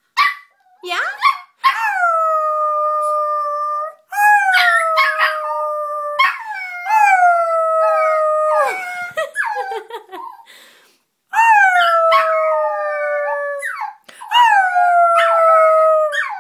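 Shetland sheepdog puppy howling: a string of about five long calls of a couple of seconds each, each dipping slightly in pitch at the start and then held steady, with short yips between them.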